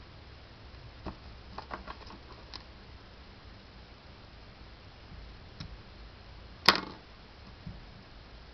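Small clicks and taps from fly-tying tools being handled at the vise: a quick cluster of light clicks early on, then one sharp, much louder click about two-thirds of the way through, followed by a faint tick.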